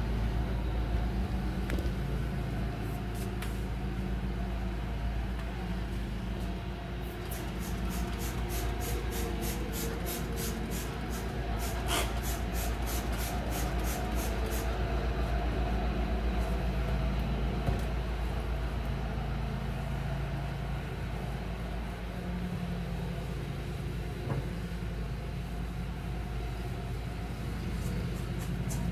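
A cloth scrubbing back and forth on kitchen cabinet doors, in quick strokes about four a second for several seconds in the middle and briefly again near the end, over a steady low rumble and hum.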